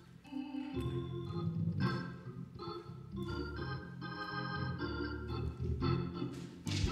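Organ playing held chords that change every second or so, coming in louder just under a second in.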